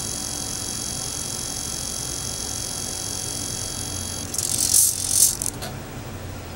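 Cyclic servos on a T-Rex 250 RC helicopter buzzing with a steady high whine while the throttle stick is at full. About four seconds in a loud rattling burst of about a second cuts in, and after it the buzz has stopped.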